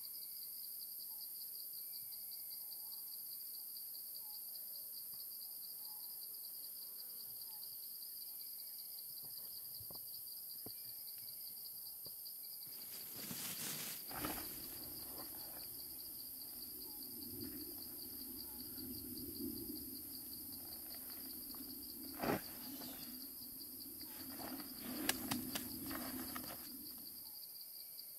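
Steady chorus of insects, a high, finely pulsing chirr. About halfway through a low hum joins in, with a few sharp knocks and rustles over it.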